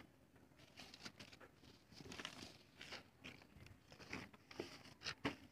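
Faint, scattered scratches and light taps of a pen and paper being handled on a clipboard, with a few sharper ticks near the end.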